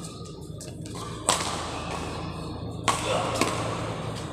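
Badminton rackets striking a shuttlecock during a rally: two sharp hits about a second and a half apart, with a few fainter clicks, over a steady low hum.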